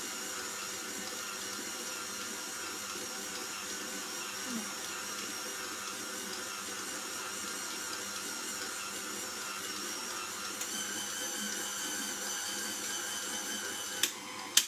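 KitchenAid stand mixer running steadily, its motor whining as the dough hook kneads a soft yeast dough. Near the end come two sharp clicks, and the motor cuts off.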